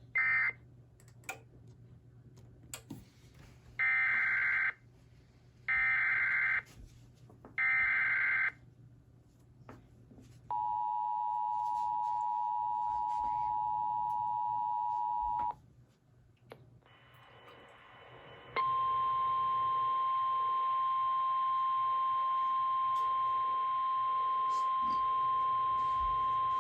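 Emergency Alert System tones relaying a flash flood warning. First a short burst and three buzzing SAME digital header bursts about two seconds apart. Then the two-tone EAS attention signal holds for about five seconds, and after a short gap a single steady weather-radio alert tone just above 1 kHz runs for about nine seconds.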